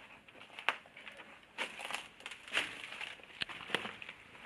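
Footsteps crunching on a gritty floor, about one step a second, with small scuffs between them.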